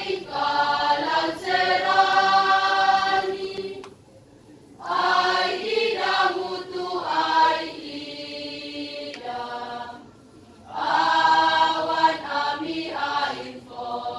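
High-school choir singing in sustained phrases, breaking off briefly about four seconds in and again about ten seconds in.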